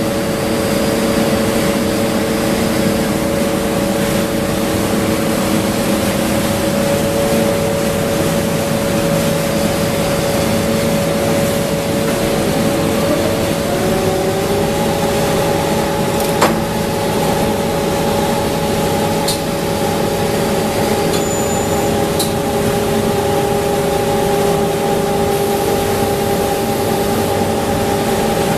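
PVC cling film cast line and its winder running: a steady mechanical hum with several steady tones. About halfway through, one tone rises in pitch and then holds, and a single sharp click follows a couple of seconds later.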